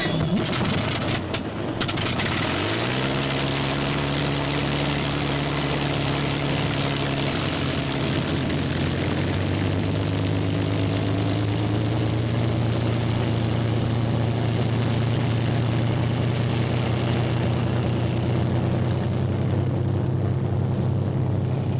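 Curtiss P-40 fighter's liquid-cooled V-12 aircraft engine running. There are a few sharp pops in the first two seconds, then about two and a half seconds in the engine note rises and settles into a steady run.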